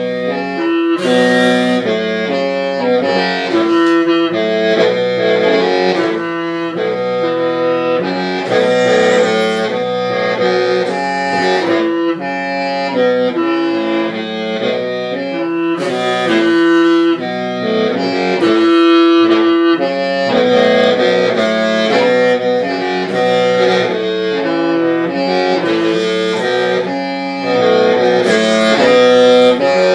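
Hmong qeej, a free-reed bamboo mouth organ, playing a melody of several sustained pitches at once over a steady low drone, the notes changing every half second or so.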